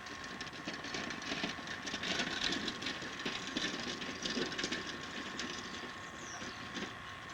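A loaded wagon and bicycles rolling: a steady mechanical rattle with many small clicks.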